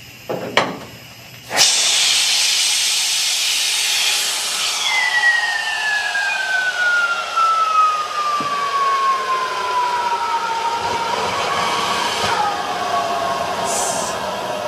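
Helium gas venting from a 1.5 T Siemens MRI magnet during a quench, as the liquid helium cryogen boils off: a loud hiss starts suddenly about a second and a half in and holds steady. A whistling tone within it slides slowly down in pitch over several seconds.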